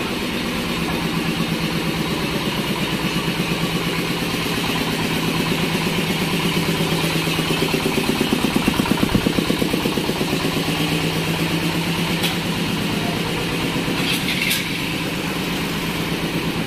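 An engine running at a steady idle with a fast, even low pulse, swelling a little about halfway through. A couple of brief clicks come later on.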